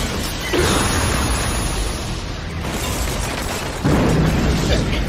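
Animated-action explosion sound effects: a heavy rumbling blast starts about half a second in, and a second, louder impact hits just before four seconds in.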